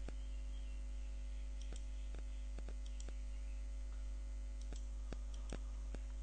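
Computer mouse button clicking several times, single sharp clicks spread out from about two seconds in, as colours are picked and fills are applied in a paint program. A steady low electrical hum runs underneath.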